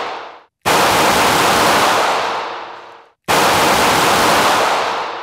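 Two slowed-down, stretched revolver shots from a .38 Special snubnose: each starts suddenly as a loud hiss, holds for about two seconds, then fades away. The first comes about half a second in, the second a little past three seconds.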